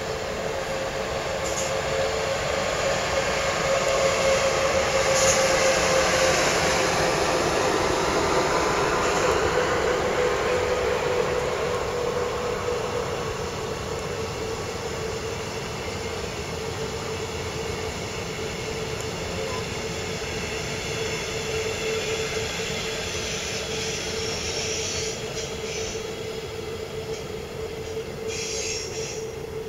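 Electric-hauled night train with sleeper and couchette coaches pulling out and rolling past, loudest about four to ten seconds in as the locomotive and first coaches go by, then fading as the coaches roll away. A steady high tone runs through the rolling noise throughout.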